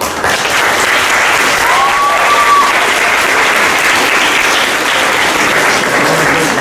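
Audience applauding steadily in a hall, the clapping starting right as the skit ends. A brief high tone cuts through the clapping about two seconds in.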